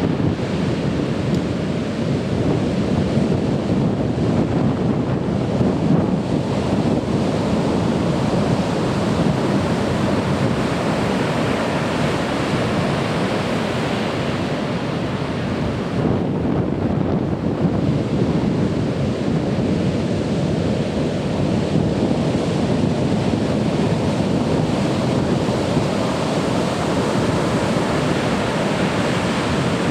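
Large typhoon swell breaking on a sand beach: a continuous wash of surf, heavy in the low and middle range, swelling and easing slowly, with some wind on the microphone.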